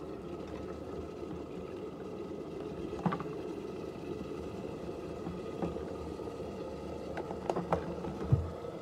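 Electric kettle heating water with meatballs in it, a steady noise throughout. A sharp click comes about three seconds in, and several clicks and a low knock come near the end.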